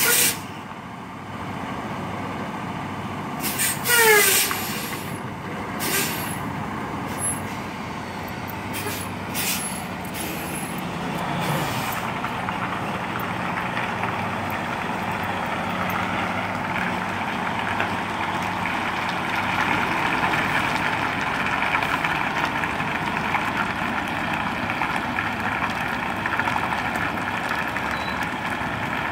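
Diesel semi truck backing a trailer, its engine running steadily and working louder from about twelve seconds in. Near the start come a few sharp air-brake hisses, one with a falling squeal about four seconds in.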